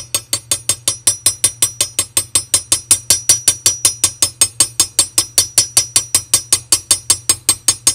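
Steady rapid metal-on-metal tapping, about five or six light strikes a second, each with a bright ring: a small hammer striking the ball end of a ball-peen hammer whose polished face rests on a steel screw end, planishing it into its hole in a revolver frame to form a new trigger stud.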